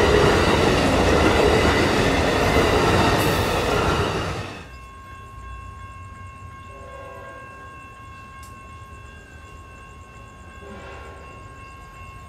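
Amtrak Silver Star passenger cars rushing past at speed with loud rolling wheel and rail noise, cut off suddenly about four seconds in. After that, a quieter scene with a faint steady high tone and short, faint blasts of a distant freight train horn twice.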